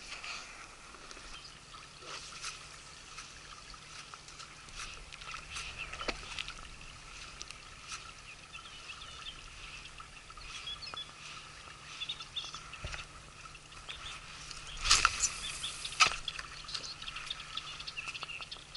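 Quiet riverside outdoor ambience with faint chirps of birds and scattered small clicks, broken by two loud knocks about fifteen and sixteen seconds in.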